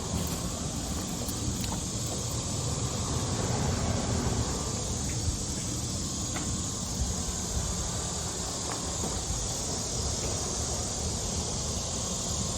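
Steady rushing noise, a low rumble under a hiss, with a few faint ticks.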